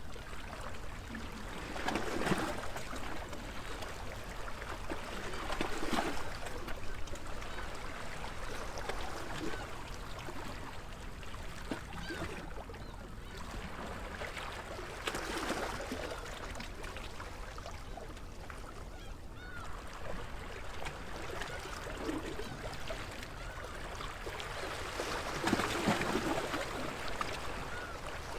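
Small sea waves washing in against a stone embankment every few seconds, each swell followed by lapping and trickling water.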